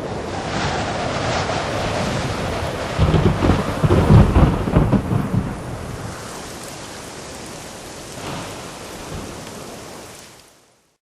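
Rain falling, with a low roll of thunder about three seconds in that dies away, and the storm fading out near the end.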